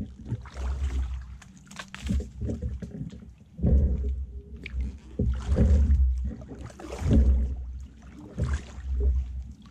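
Kayak paddle strokes in calm water, a splash and drip with each stroke, recurring about every second or so, each with a low rumble.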